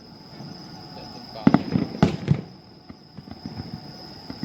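Aerial fireworks shells bursting: a quick cluster of five or six sharp bangs about a second and a half in, over within a second.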